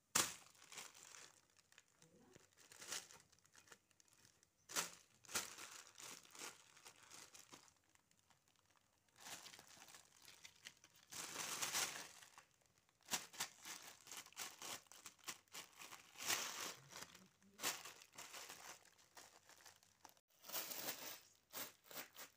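Clear plastic sheet crinkling and rustling in irregular bursts as a kitten pounces on it and paws at it.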